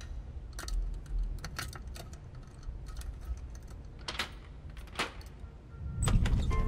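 Keys and a door lock being worked by hand: a run of irregular metallic clicks and two short scrapes as the key turns. A low rumble swells near the end.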